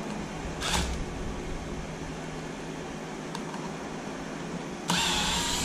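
Cordless drill-driver whirring briefly twice while backing out screws from an RC truck chassis: a short blip about half a second in and a longer run of under a second near the end, which is the loudest sound. A steady background hiss and hum lies under it.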